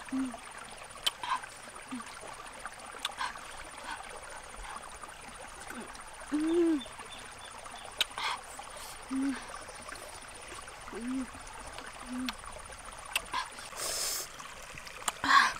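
A woman eating roasted eggplant makes short low 'mmm' hums of enjoyment every second or two, with small chewing and lip-smacking clicks, over the faint steady babble of a shallow stream. A brief louder noise comes near the end.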